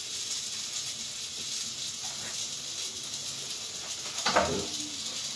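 Kitchen work at a counter: a steady hiss throughout, with one louder knock or clatter about four seconds in.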